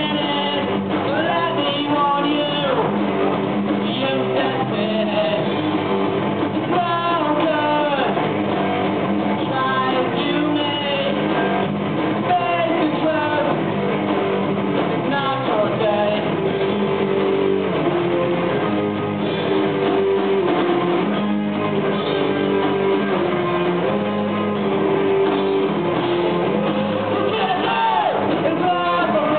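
Live rock band playing: electric guitars, bass guitar and drum kit, with singing over them.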